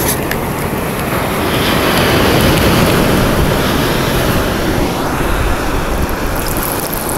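Ocean surf washing up the beach, swelling louder a couple of seconds in, with wind buffeting the microphone.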